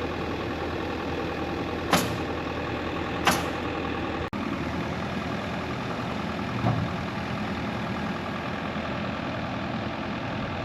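Bobcat E55 mini excavator's diesel engine running steadily, with two sharp knocks about two and three seconds in and a softer knock near seven seconds.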